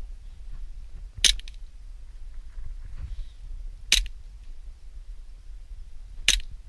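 Airsoft gun firing single shots: three sharp cracks, about a second, four seconds and six seconds in, over wind rumbling on the microphone.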